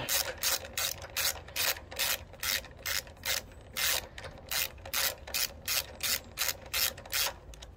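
Socket ratchet clicking steadily, about three clicks a second, as a bolt is run in on a small four-stroke engine's carburettor mounting. The bolt is only being run down, not yet tightened.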